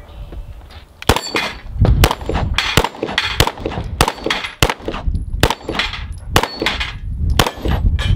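Walther P99 pistol fired about a dozen times at a steady pace, roughly a shot every half second, starting about a second in; each shot has a short ringing tail.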